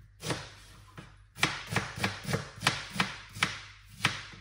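Knife chopping a red onion on a cutting board: one chop early on, then a quick run of about ten chops, roughly three a second, starting about a second and a half in.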